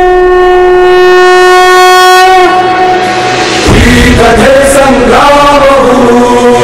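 A conch shell (shankha) blown in one long steady note that bends down and fades about two and a half seconds in. About a second later, music starts with a wavering melody line, the opening of a devotional song.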